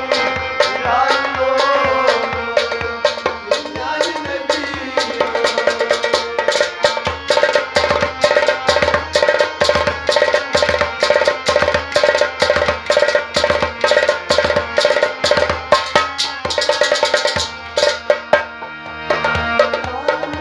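Tumbaknari, a Kashmiri clay goblet drum, played by hand in a quick, steady rhythm over a harmonium holding sustained notes. The drumming thins out briefly near the end, then picks up again.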